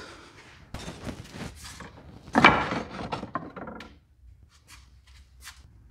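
Pieces of scrap wood knocking and clattering together as a board is stood among other offcuts in a wooden rack. There is one louder knock a little over two seconds in, then a few faint taps.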